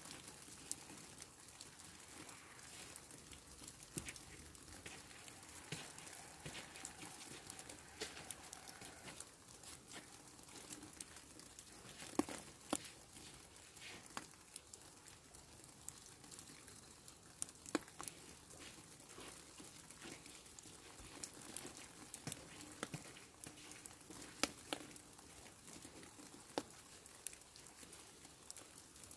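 Falling snow ticking faintly on surfaces: scattered, irregular light clicks, a few a second, over a soft steady hiss.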